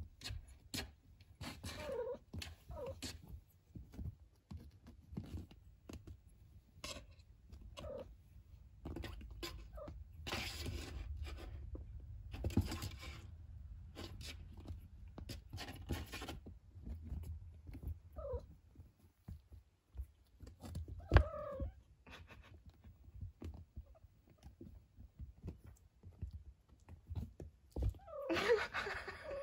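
Four-week-old kittens giving several short, high mews. Between the mews there is rustling and scuffling of paws on quilted bedding, and a single sharp knock about two-thirds of the way through.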